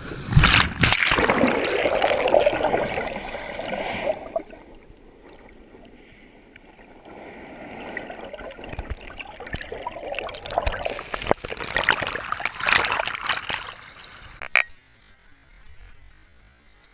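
Water splashing and sloshing in shallow water at the shore. It is loudest in the first four seconds and again from about eight to fourteen seconds, then drops off suddenly.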